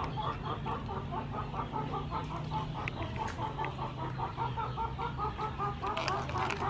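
Chickens clucking in the background, a steady run of short calls several a second, over a low steady hum, with a few sharp clicks near the end.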